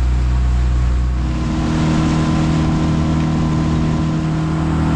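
Small motorboat's engine running under way; about a second in its note shifts upward as it speeds up, with water rushing along the hull.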